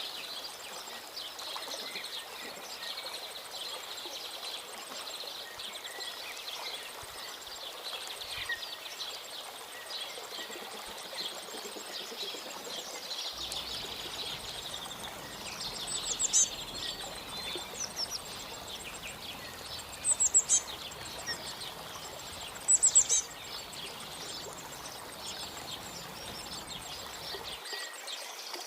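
Birds chirping: a dense, continuous chorus of small chirps, with three louder, sharp calls standing out in the second half.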